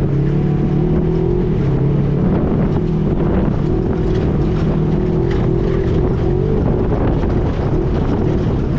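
Off-road tour vehicle's engine running steadily as it drives, its pitch wavering slightly with the throttle.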